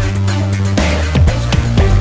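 Electronic background music with a heavy, sustained bass line and a steady beat, with short falling bass sweeps after about a second.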